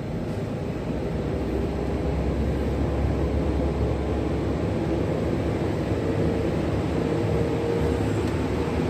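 Steady whir and low hum from the cooling fans of a powered-up 800-watt-per-channel power amplifier.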